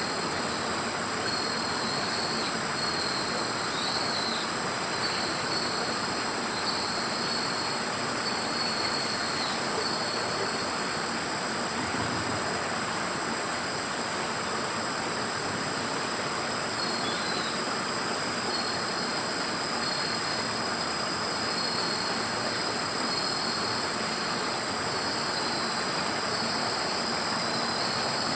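Insects trilling steadily in several unbroken high tones over a constant background hiss, with a few short chirps cutting through now and then.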